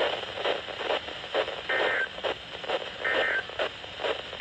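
Weather radio receiver hissing with static on a weak signal, with irregular crackles and three short high tones about a second and a half apart.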